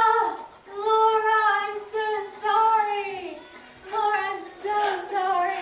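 A woman screaming in fright: a string of high-pitched, long held cries with short breaks between them.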